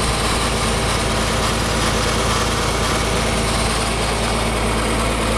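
Tractor engine running steadily at a constant speed, the power source for a three-point-hitch backhoe.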